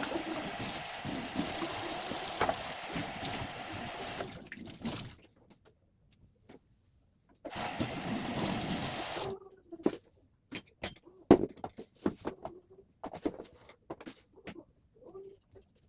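Water running from a tap for several seconds, stopping, and running again briefly. Then a series of sharp knocks and clatters, like items being handled and set down at a sink.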